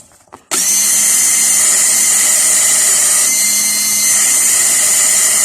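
Small motorised buffing wheel starting about half a second in and running steadily with a high whine and hiss as a freshly cut car key is buffed to clean off burrs.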